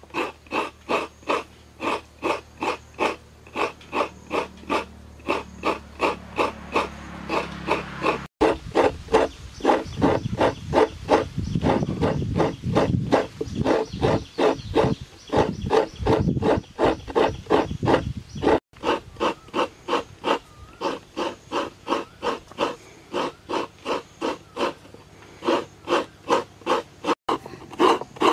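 Halved coconut scraped hard against the toothed metal blade of a traditional coconut grater, in steady rasping strokes about two to two and a half a second.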